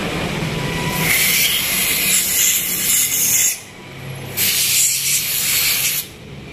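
Aerosol carburettor cleaner sprayed onto a carburettor in two hissing bursts, the first about two and a half seconds long and the second about a second and a half, with a short pause between.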